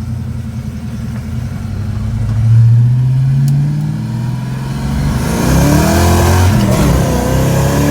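1985 Ford Mustang GT's carbureted 5.0-litre V8 accelerating under load. Its pitch rises over the first couple of seconds, then it climbs again, louder, from about five seconds in. It is running with a new distributor harness fitted in place of a corroded one, the cure for its misfire, popping and banging at wide-open throttle.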